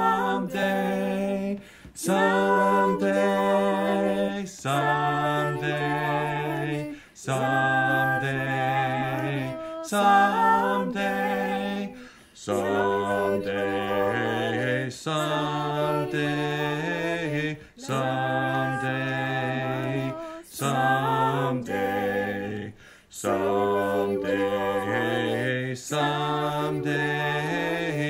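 Four-part a cappella vocal quartet of soprano, alto, tenor and bass singing in harmony, without accompaniment. They sing short repeated phrases about every two and a half seconds, with brief breaks for breath between them. The upper and lowest parts repeat "someday" while the tenor sings "Gonna be ready when He calls my name".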